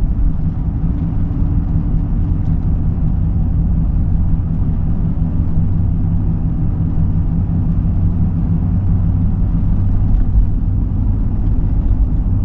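Van engine and road noise heard while driving, a steady low rumble with no change in pace.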